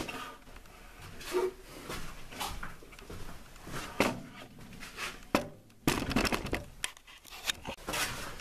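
Camera handling noise inside a small room: scattered light knocks, clicks and rustles as a handheld camera is moved about, with a denser run of sharp clicks about six seconds in.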